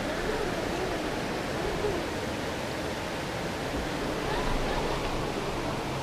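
RC crawler truck's electric motor and gears whining, the pitch rising and falling with the throttle, over a steady rushing noise.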